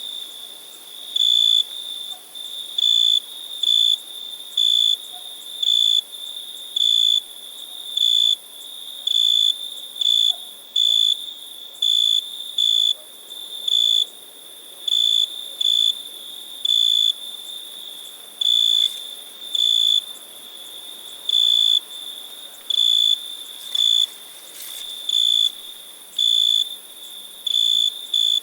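Cricket chirping: short high-pitched chirps repeating about once every second or so at slightly uneven spacing, over a faint steady high hiss.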